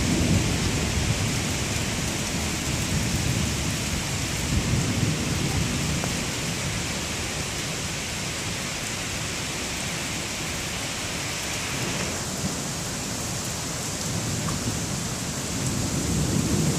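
Thunderstorm: steady rain hiss with low rumbling thunder, the rumble heaviest at the start and again near the end. The rain hiss thins a little about twelve seconds in.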